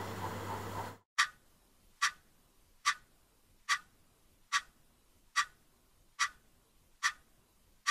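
Clock ticking steadily, one sharp tick a little under every second, after a low hum and room noise that cut off suddenly about a second in.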